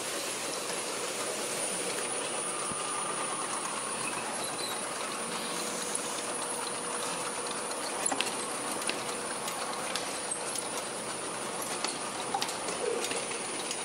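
Automatic oil bottle filling and capping line running: a steady mechanical hiss and hum from the slat-chain conveyor and machinery, with scattered clicks and clacks, a few sharper ones past the middle and near the end.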